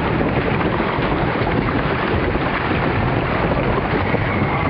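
Steady loud rushing of wind buffeting the camera microphone on a moving amusement ride, with a heavy low rumble.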